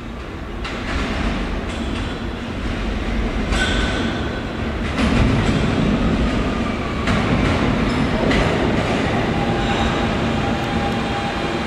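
New York City subway train running on the track, growing louder over the first few seconds as it comes close. There are brief wheel squeals, and a steady electric motor whine joins in during the second half.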